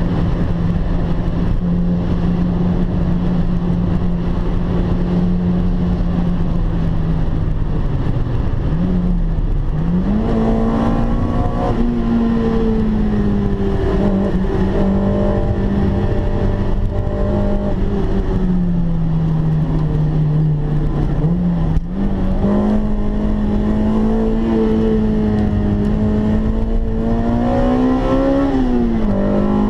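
Honda Integra Type R DC2's 1.8-litre four-cylinder VTEC engine heard from inside the cabin at speed, over steady road and tyre noise. The engine note holds, then falls and climbs again several times, with a brief drop-out about two-thirds of the way through and a rise near the end.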